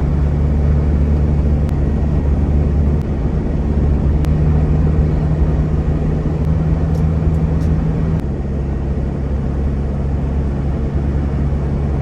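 Inside the cab of a GAZelle Next van driving on the highway: a steady low engine drone with road noise. The hum shifts a little in pitch about three seconds in and again about eight seconds in.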